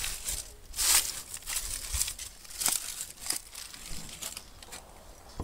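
Irregular rustling and crackling with a few sharp clicks, the sound of someone moving about and handling the camera. It is loudest about a second in and again near the middle.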